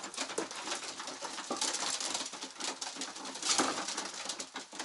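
Racing homer pigeons cooing in their loft, with scattered clicks and scuffs and a couple of louder rustles about two and three and a half seconds in.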